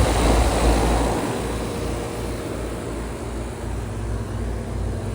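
Outdoor heat pump units running with a steady hum and fan noise. A low, uneven rumble of wind buffeting the microphone is heaviest in the first second, then eases.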